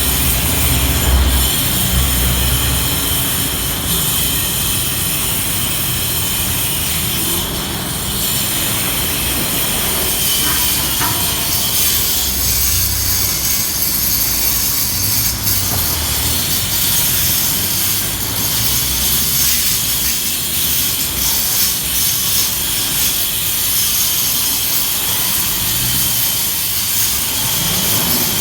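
Electric grinder running continuously, a steady high whine over a low, uneven rumble of heavy work.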